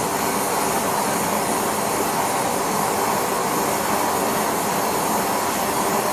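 Steady, even rushing noise from the heating equipment as it brings the casting setup up to temperature.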